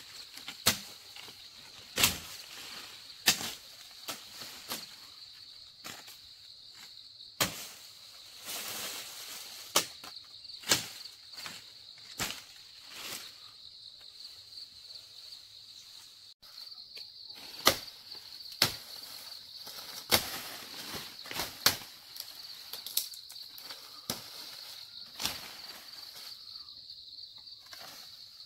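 A steady high insect drone under irregular sharp cracks, every second or two, and bursts of leaf rustling as leafy fodder branches are cut and snapped off high in a tree.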